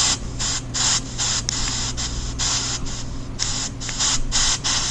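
Pink noise chopped into short hissing bursts by a phone app, cut off and restarted about three times a second at uneven lengths, over a steady low hum.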